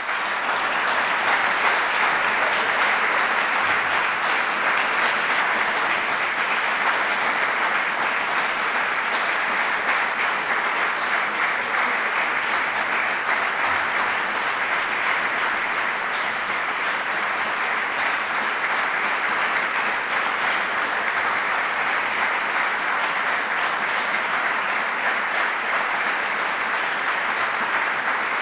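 Audience applauding, a dense and steady clapping from a full hall.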